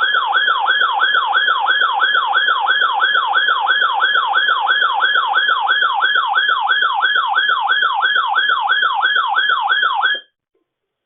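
Electronic siren-like alert tone, a pitch that falls sharply and repeats about three times a second, sounding the alert for an Emergency Alert System weekly test. It runs for about ten seconds and then cuts off suddenly.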